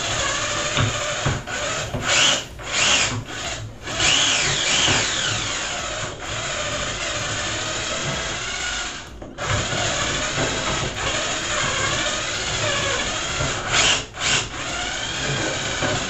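Cordless drill spinning a small grinding bit against the shower valve body inside the wall, grinding off rust. It whines almost continuously, cutting out briefly several times as the trigger is let off, and its pitch dips and rises about four seconds in.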